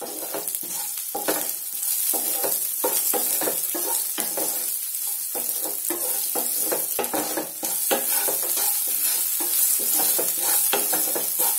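Sliced onions sizzling in hot oil with mustard seeds and urad dal in a nonstick pan. They are stirred with a spatula that scrapes and knocks against the pan in quick repeated strokes over a steady frying hiss.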